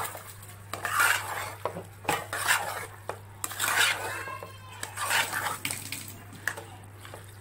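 A steel spoon stirring and scraping around a metal pot of wet prawn and snake gourd curry, in repeated strokes about every half second.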